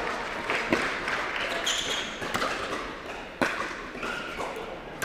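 Pickleball rally: sharp pops of paddles striking the plastic ball and the ball bouncing on an indoor court, a second or so apart.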